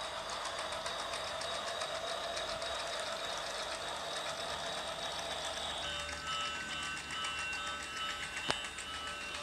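Battery-operated toy train running: a fast, even clatter from its small motor and wheels, under steady high electronic tones that switch to a different set about six seconds in. A single sharp click near the end.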